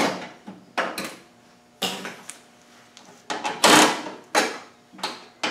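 Cordless drill-driver run in several short bursts on a stubborn screw, with clatter from the metal panel between bursts.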